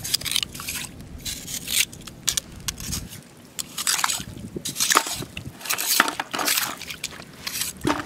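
Shallow tide-pool water splashing and dripping as metal tongs dip in and scoop out sea snails, with irregular short splashes and sharp clicks.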